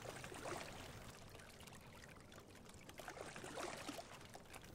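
Faint rushing and trickling of water from a single scull being rowed, the oar blades and hull moving through the water, swelling slightly twice.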